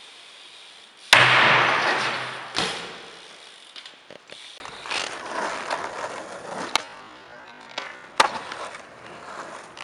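A BMX bike hits a concrete floor with a loud crack about a second in and rolls on, the noise fading over a second or so. Later a skateboard rolls on rough pavement, the board clacking sharply twice near the end.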